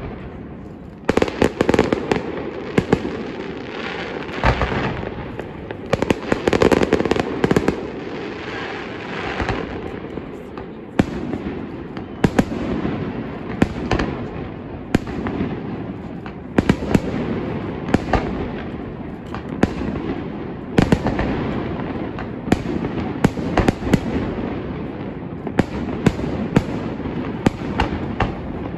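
Fireworks display in full swing: a continuous barrage of sharp shell bursts and bangs following each other every second or so, over a steady crackling din.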